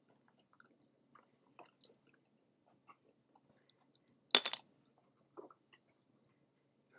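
A person chewing a bacon cheeseburger with the mouth close to the microphone: faint, scattered small wet mouth clicks, with one much louder short noise a little over four seconds in.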